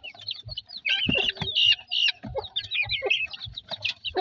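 A brood of chicks and young guineafowl keets peeping constantly in quick, high-pitched calls, with a few lower, fuller clucks about a second in.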